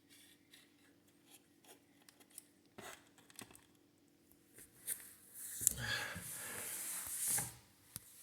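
Handling noise from a Tascam Porta Two cassette recorder being moved about: scattered small clicks and taps, then a louder scraping rub lasting about two seconds, starting about five and a half seconds in.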